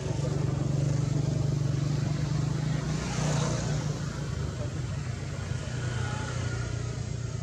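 A motor vehicle's engine running with a low, steady hum, and a brief swell of hiss about three seconds in.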